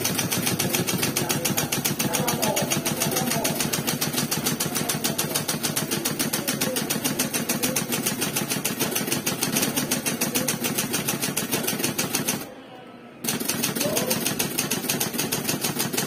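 Fast, continuous typing on a typewriter keyboard: a dense, even run of key clicks, many a second. It stops for under a second about three-quarters of the way through, then carries on.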